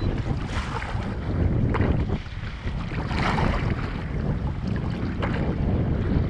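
Wind buffeting the microphone in a low, steady rumble, with a few brief swells of water splashing against the kayak.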